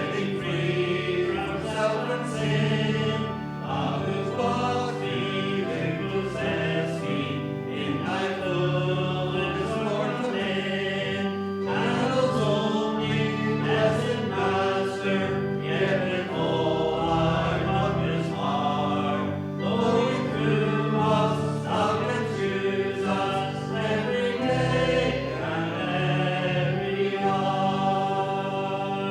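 A hymn sung by many voices together over a steady instrumental accompaniment of held chords.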